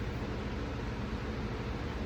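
Steady background hum and hiss between spoken passages: an even noise with a low steady drone underneath, unchanging throughout.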